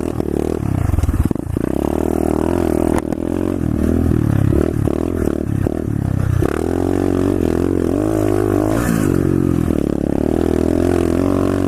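Pit bike engine revving up and down repeatedly as the bike rides off along a muddy trail.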